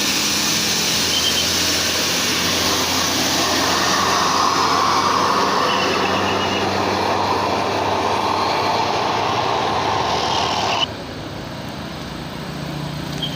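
Bus engine working hard on a steep climb, heard close as a loud steady roar. It cuts off abruptly near the end to a quieter engine sound.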